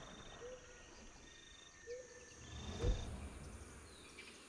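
Wild outdoor ambience: a steady high drone of insects with short calls repeating every second or so, and a single low thump about three seconds in.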